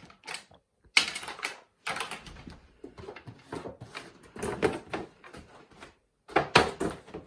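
Objects being handled: a run of irregular clicks, knocks and rustles, with short pauses between them.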